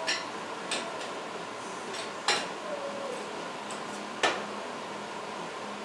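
A few sharp metallic clinks and taps of metal parts being handled, spaced a second or two apart, the two loudest about two and four seconds in, over a steady background hum.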